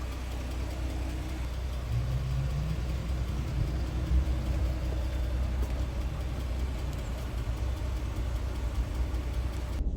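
Steady low engine and road rumble from a moving car, heard inside the cabin, with a faint engine note rising a little about two seconds in.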